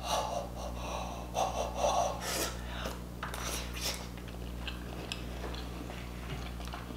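Close-miked eating sounds: several short wet mouth noises and breaths in the first few seconds as a sauce-dipped bite goes into the mouth, then quieter chewing. A steady low hum lies underneath.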